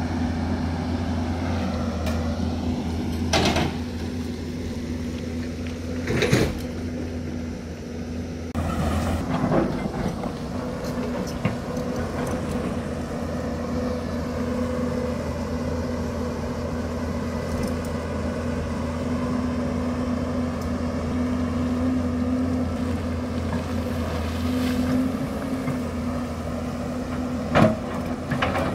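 Hyundai crawler excavator's diesel engine running steadily under working load, a constant low hum with a steady tone above it. A few sharp knocks from the bucket working the rocky bank stand out, about 3, 6 and 9 seconds in, and the loudest near the end.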